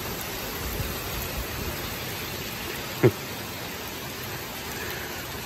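Heavy wind-blown rain pouring down in a steady, even hiss. About three seconds in comes a single brief sharp tap.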